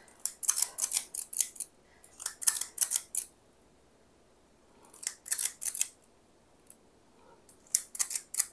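Metal spring-loaded cookie scoop clicking and scraping as it scoops dough and snaps it out onto a metal baking sheet: four short runs of quick clicks a couple of seconds apart.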